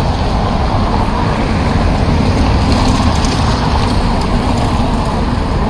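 Steady road traffic noise from a busy city street, a continuous rumble of passing cars and buses.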